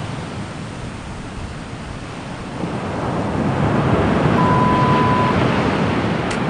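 Steady rushing noise, like surf or wind, that swells about two and a half seconds in. It is a background sound laid over the audio to dodge copyright detection. About four and a half seconds in, a single steady beep sounds for just under a second.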